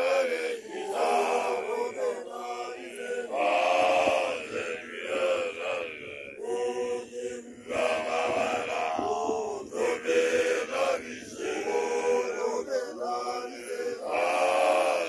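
A group of young Basotho male initiates (makoloane) chanting a song together, in phrases a second or two long with short breaks between.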